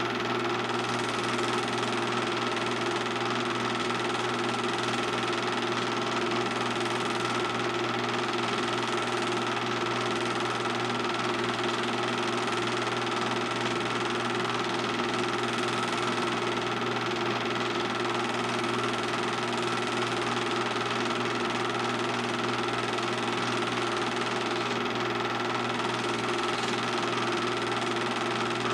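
Steady whir and hum of a film projector running.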